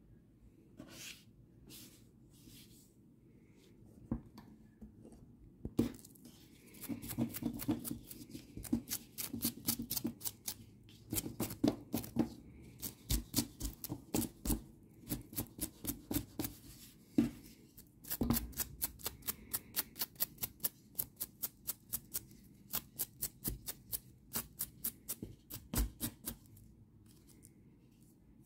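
A small brush being stroked quickly and repeatedly over crocheted acrylic yarn, about three to four scratchy strokes a second, with a short break partway through. The yarn is being brushed to raise its fibres and make it fluffy.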